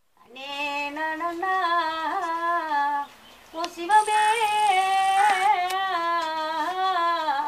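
A woman singing a Tamil folk song unaccompanied, in long drawn-out, wavering notes: two phrases with a short breath between them about three seconds in.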